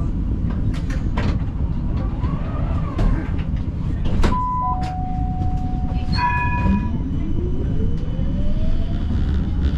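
Siemens Combino tram with a steady low rumble and a few clicks. About four seconds in comes a two-note electronic signal tone, high then lower, followed by a short beep. Then the traction motors' whine rises steadily in pitch as the tram starts moving off.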